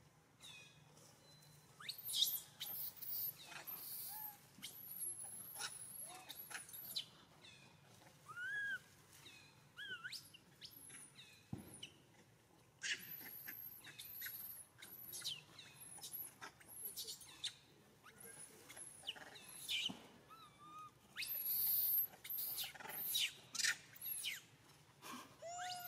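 Flurries of short, high-pitched chirps and squeaks in several bursts, with a few lower rising-and-falling calls among them.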